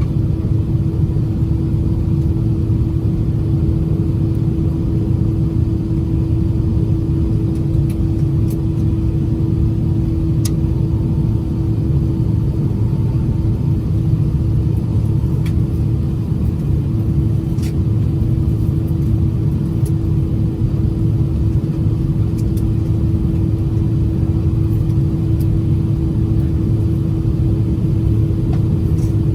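Steady cabin noise of an Airbus A319 with its engines running: a constant low rumble and a steady hum, with a few faint clicks.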